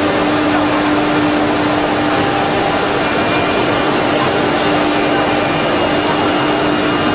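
Small CNC engraving machine's spindle running steadily: a constant tone over a loud, even hiss.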